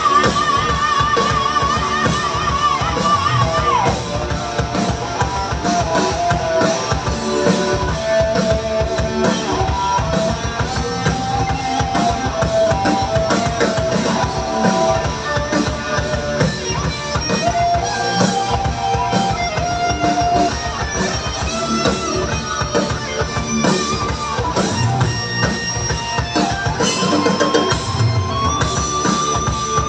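Live rock band playing on stage: guitars over a drum kit, with a high melodic note held and wavering at the start before the line moves on.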